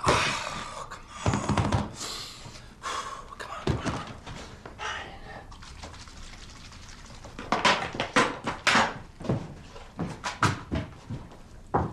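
Household handling noises: a scatter of knocks, thuds and clicks with short rustling stretches, bunched into two quick clusters in the second half.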